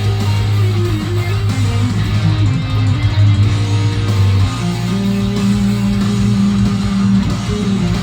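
Instrumental metal with an electric guitar playing a melodic lead over held low bass notes; the low note changes about four and a half seconds in.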